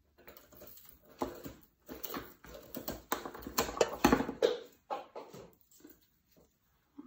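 Flower stems and packaging being handled and trimmed: a run of rustles and sharp clicks, loudest about four seconds in.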